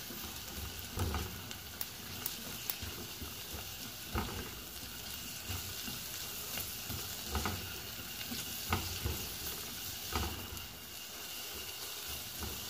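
Carrot sticks and sliced shallots sizzling in hot oil in a granite-coated pot while being stir-fried with a spatula. The spatula knocks and scrapes against the pot every second or two over a steady sizzle.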